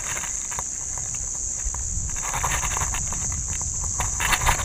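Rustling and clicking as pliers work a diving lure's hooks free from a mangrove jack held in a lip grip, loudest about two seconds in and again near the end, over a steady high-pitched insect drone.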